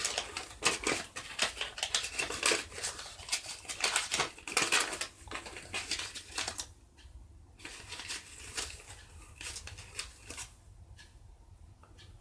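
Dense, irregular crackling and clicking that thins out after about six seconds into scattered single clicks.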